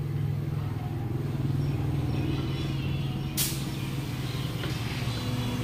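Steady low mechanical hum, with one short, sharp blast of compressed air from a tyre inflator hose about three and a half seconds in.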